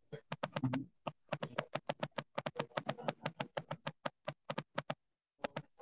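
Typing on a computer keyboard: a fast run of light key taps for about five seconds, stopping shortly before the end, then two more taps.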